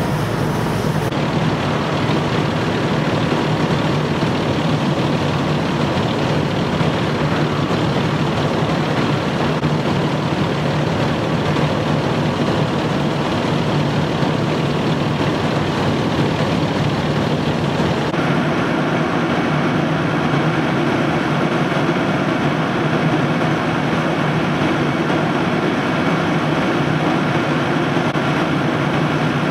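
Large diesel engine idling steadily with an even, low drone.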